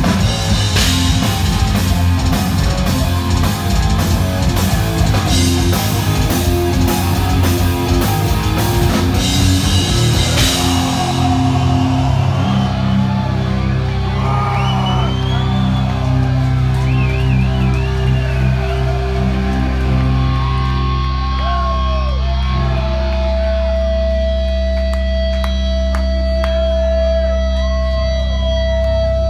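Metal band playing live and loud: fast drumming under distorted guitars. About ten seconds in the drums drop out, leaving held, ringing guitar chords with wavering notes over them, and a steady high note that rings on near the end.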